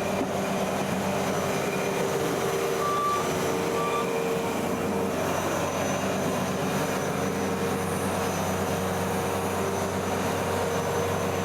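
An engine running steadily, with two short high beeps about three and four seconds in.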